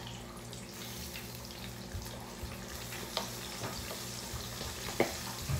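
Tilapia frying in hot grease in a skillet, a steady sizzle, with a few sharp clicks of metal tongs against the pan as the pieces are turned.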